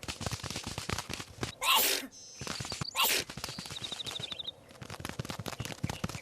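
Two sharp cartoon sneezes, a little over a second apart, over a dense patter of small clicks, with a brief rapid ticking chirp after the second sneeze.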